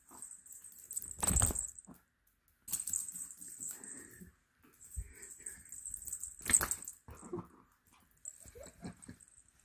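A small chihuahua moving about on a tile floor: soft scuffling and rustling, with two loud knocks, one about a second and a half in and one about two-thirds of the way through.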